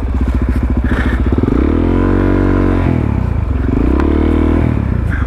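Supermoto motorcycle engine labouring at low revs in separate chugs, then revved up and back down twice as the bike is ridden over rough ground.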